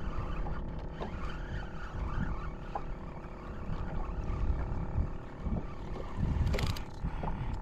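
Wind buffeting the microphone over the steady hum of a boat motor, with a short rush of noise near the end.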